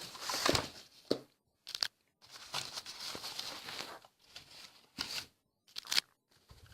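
Packaging being handled and pulled apart, rustling and crinkling in stretches, with a few sharp clicks and knocks in between.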